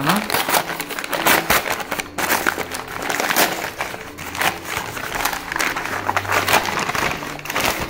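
Brown kraft-paper mailer envelope being torn open and crumpled by hand: a dense, irregular run of tearing and crinkling paper.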